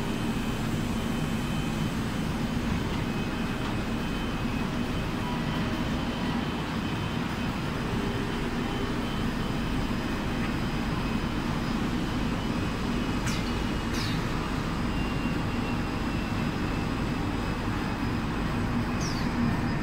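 Steady drone of the machinery of an automatic wood-door spray-coating line, with conveyor belts and extraction fans running. A few brief high squeaks come about two-thirds of the way through and again near the end.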